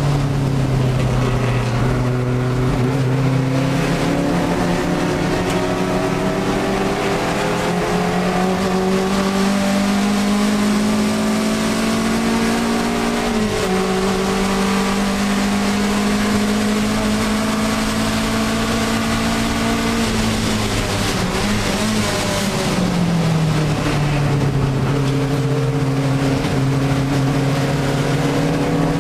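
Alfa Romeo 1750 GTV's twin-cam four-cylinder engine at racing revs, heard from inside the cockpit. The revs climb slowly through a long pull with a brief dip halfway, fall away around twenty seconds in as the car slows for a corner, then hold lower and begin to build again near the end.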